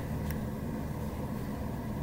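Steady low mechanical rumble, with one faint click about a quarter of a second in.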